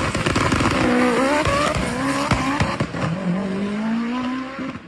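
Car engine accelerating hard under a launch, its pitch climbing, dipping briefly about a second in as if at a gear change, then rising steadily again, over dense tyre and exhaust noise with scattered sharp cracks.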